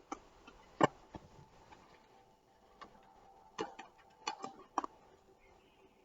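Small parts and packaging being handled, giving sharp clicks and knocks: one loud knock a little under a second in, then a quick cluster of four or five clicks in the second half.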